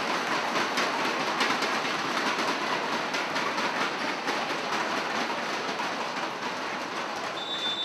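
Spectators in a sports hall cheering and clapping, a dense, steady crowd noise full of quick claps. Near the end a referee's whistle blows one steady note, signalling the serve.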